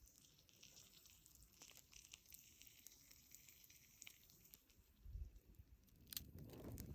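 Faint campfire crackling: scattered small ticks over a soft hiss, with a low bump about five seconds in and rustling that grows louder near the end.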